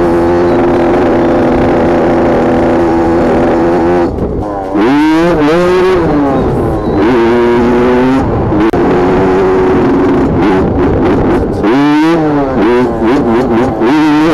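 Honda dirt bike engine running under load at a steady high pitch. Around five seconds in and again near twelve seconds the revs climb and fall as the rider opens and closes the throttle.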